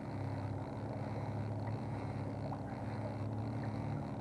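Boat engine running steadily at trolling speed, an even drone.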